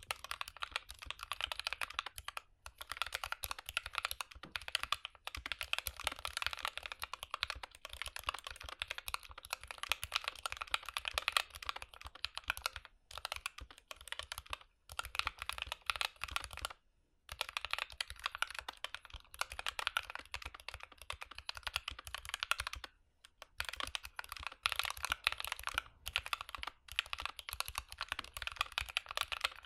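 Continuous fast typing on a GK61 mechanical keyboard fitted with lubed Gateron Optical Red linear switches: a rapid run of keystroke clacks, broken by a few brief pauses.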